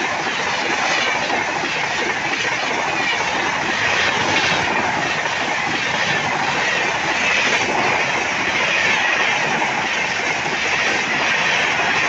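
Passenger coaches of an Indian Railways express train rushing past at speed: a loud, steady rush of steel wheels on rail with a running clatter over the rail joints.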